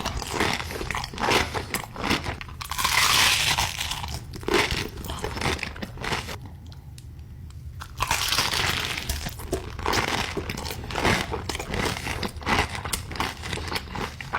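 Close-miked eating of crisp, crunchy food: crackling bites and chewing, with a short quieter lull about halfway through.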